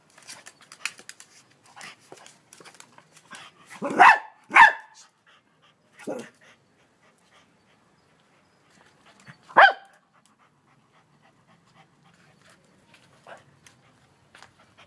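Small dog barking at a large mantis: two sharp barks in quick succession about four seconds in, a weaker one about two seconds later, and another near ten seconds, with faint clicking between.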